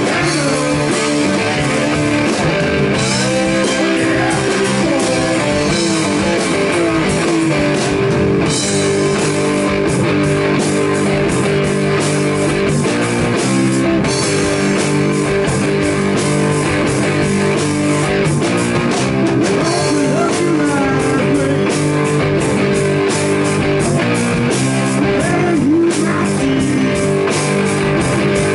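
Blues rock band playing live: electric guitar over bass guitar and drum kit, with bent and wavering guitar notes.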